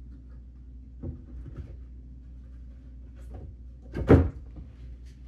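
New sink being set down into the countertop cutout for a dry fit: a light knock about a second in, then one loud thump about four seconds in as it drops into place.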